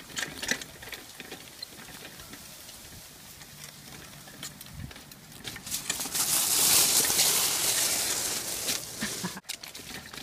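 Wheels of a dog-drawn FireAnt tricycle and the dogs' trotting paws rolling over grass with a rustle and scattered ticks, then a loud crunching hiss over gravel from about six seconds in that cuts off abruptly near the end.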